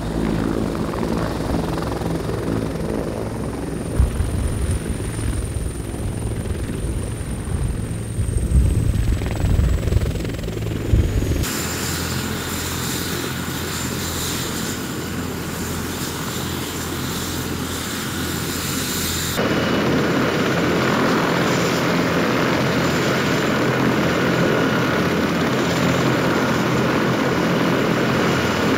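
Bell CH-146 Griffon helicopter's turboshaft engines and rotor running: first a low, heavy rotor beat with a high turbine whine that slides down in pitch as it hovers low over the pad, then, after two abrupt changes, a steadier rotor and whine as it sits on the ground with engines running during hot refuelling.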